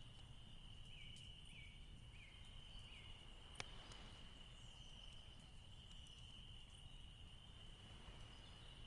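Near silence during a pause: a faint steady high-pitched tone, with a few faint short chirps early on and one faint click.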